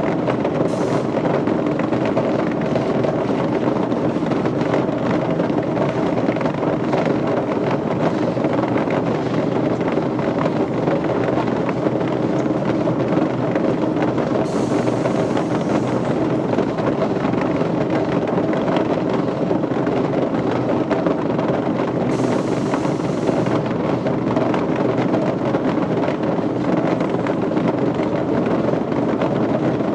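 Machinery running steadily: a constant hum over a dense, even rushing noise, with no change in pace or pitch.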